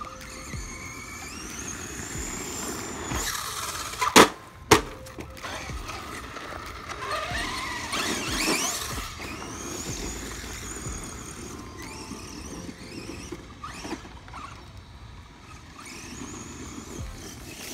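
Electric motor and drivetrain of a Pro-Line PRO-MT 4x4 1/10 RC monster truck whining, the pitch rising and falling with the throttle as it drives on dirt. About four seconds in come two sharp knocks half a second apart, the loudest sounds.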